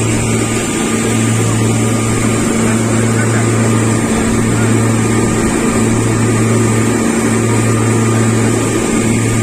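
Twin Mercury outboard motors running at cruising speed, a steady low drone that throbs evenly about every second and a half, over the rush of the wake.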